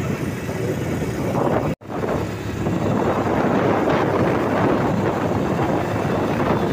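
Wind rushing over the microphone of a moving vehicle's open-air ride, with the vehicle's engine and road noise beneath. The sound drops out for an instant about two seconds in.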